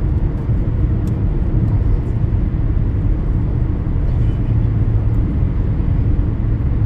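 Steady low rumble of a car driving on a wet road, with faint scattered ticks over it.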